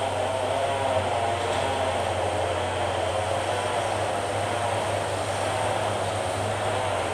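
Hitachi Zaxis hydraulic excavator's diesel engine running steadily under working load, its whine wavering up and down in pitch.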